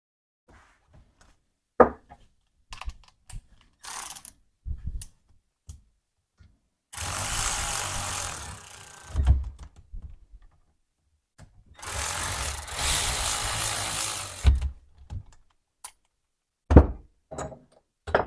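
A small motor-driven tool runs twice, each time for about two and a half seconds, among scattered clicks and knocks of metal parts being fitted together.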